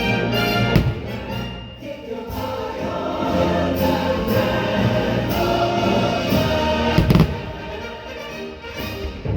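Choir singing with an orchestra, the fireworks show's patriotic soundtrack. Firework bangs cut through about a second in and again about seven seconds in, the second the louder.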